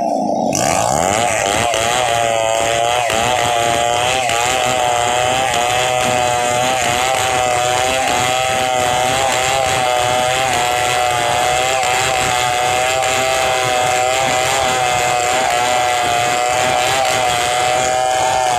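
Stihl MS 070 two-stroke chainsaw running steadily at high speed, its pitch wavering slightly.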